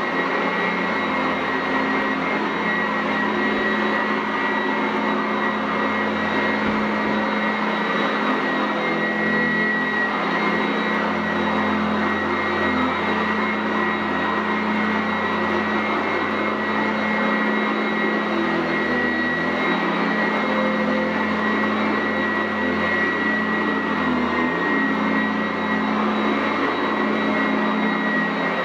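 Sanitaire SC899F commercial upright vacuum running steadily over carpet, its motor and brush roll giving a constant whine over a hum.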